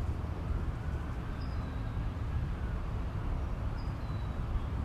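Steady low outdoor rumble with a faint thin tone above it, and two short, faint, high chirps falling in pitch: one about a second and a half in, the other near four seconds.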